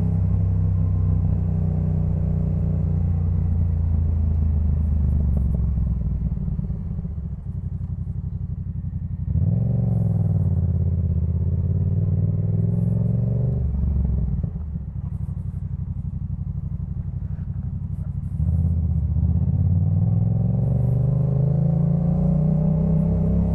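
Yamaha MT-07's parallel-twin engine through a Jeskap K4 full exhaust, ridden: the revs fall off the throttle at first, then the bike pulls hard about nine seconds in and again from about eighteen seconds, the pitch climbing steadily near the end.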